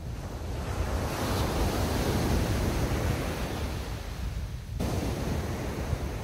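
Small waves breaking and washing up a beach, over a low wind rumble on the microphone. The surf hiss swells over the first two seconds, then cuts off sharply about five seconds in.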